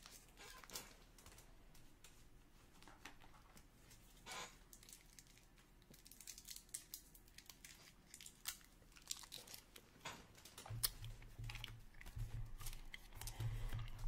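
Faint crinkling and small clicks of trading-card packs, wrappers and cards being handled, with a few low bumps on the table in the last few seconds.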